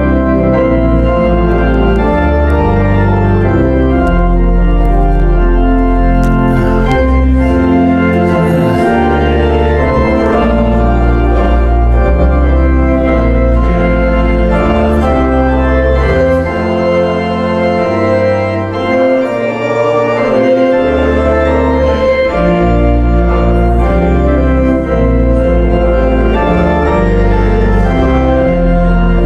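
Church organ playing a hymn in full sustained chords that change step by step. The deep bass notes drop out for a few seconds just past halfway, then return.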